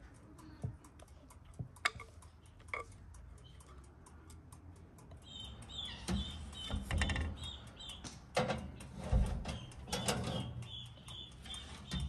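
A few light clinks of a wire whisk against a glass bowl as cake batter is poured, then low thuds and knocks as a countertop electric oven's door is handled, with a sharp clunk at the end. From about five seconds in, small birds chirp repeatedly over a fast, steady ticking.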